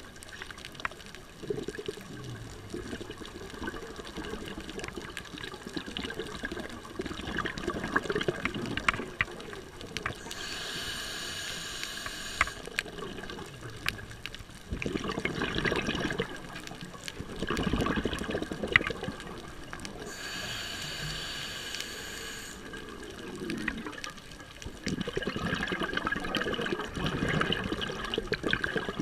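A scuba diver breathing through a regulator underwater, heard through the camera housing: twice, a hissing inhale is followed a few seconds later by a longer rush of exhaled bubbles. Faint scattered clicks run throughout.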